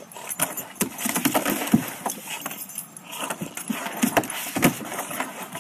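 English bulldog scrambling up a plastic slide: irregular clicks and scrapes of its claws on the plastic.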